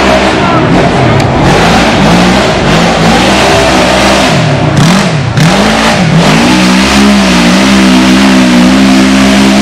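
Off-road buggy engine revving hard on a dirt hill climb. The revs swing up and down with repeated throttle blips, then hold at a steady high pitch from about seven seconds in.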